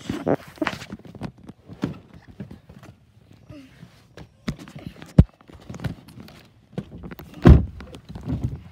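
Irregular clicks and knocks as a car's chrome interior door handle and door panel are pulled and handled, with a sharp click about five seconds in and a heavy thump about seven and a half seconds in.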